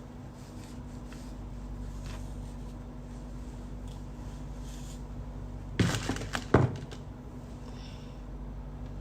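Two short bursts of clattering knocks, about six and six and a half seconds in, over a steady low hum.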